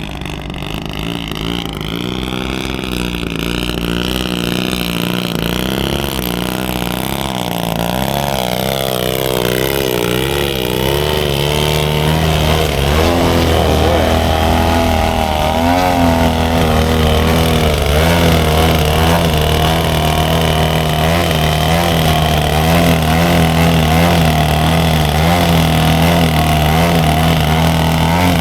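Radio-controlled model airplane's engine running in flight, its pitch sliding up and down as it manoeuvres, then holding steady and growing louder over the second half.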